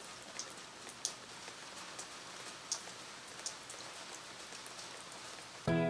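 Steady rain falling on a wet wooden deck and paving stones, with single drops landing close by as sharp ticks every second or so. Music comes in suddenly near the end.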